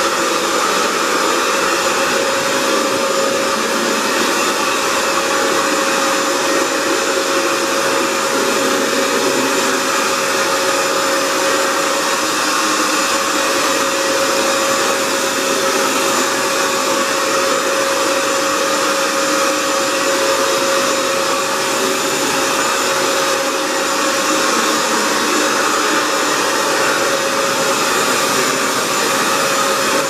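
Hoover FloorMate Edge wet hard-floor cleaner running steadily, its suction motor giving a constant whine as it scrubs and vacuums cleaning solution off a tile floor.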